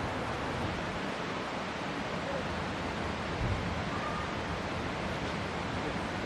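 Heavy rain falling steadily, an even hiss, with one soft low thump about three and a half seconds in.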